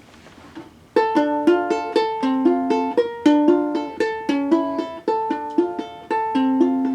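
Ukulele starting about a second in, playing an intro riff of single plucked notes in a quick repeating pattern.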